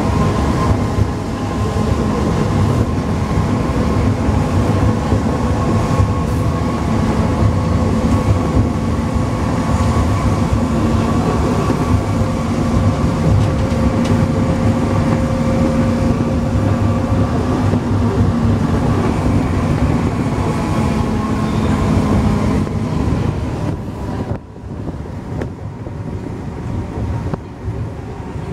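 Alstom NS-16 rubber-tyred metro train running at speed in a tunnel, heard inside the driver's cab: a steady rumble of running noise with a steady multi-tone whine above it. About 23 seconds in the whine stops and the sound becomes quieter.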